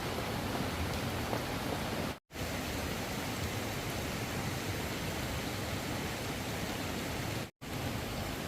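Steady hiss of water, like heavy rain or rushing floodwater, cut off to silence for a split second twice, about two seconds in and near the end.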